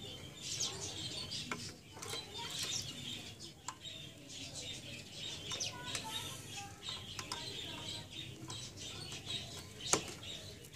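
Small clicks and rustling of plastic wire connectors and cables being handled and pushed onto an Epson T60 printer's formatter board, with one sharper click near the end.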